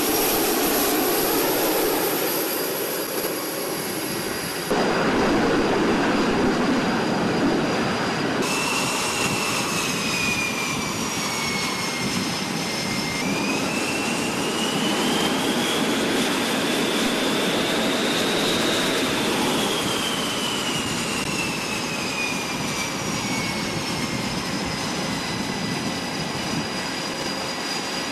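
F/A-18 Super Hornet jet engines running at close range on the catapult, a steady roar with a high turbine whine that rises and then falls slowly in pitch. The sound changes abruptly about five and eight seconds in.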